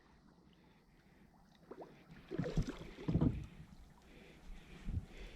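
Irregular low knocks and water slaps against a small boat's hull in shallow water, starting after a near-silent second or so.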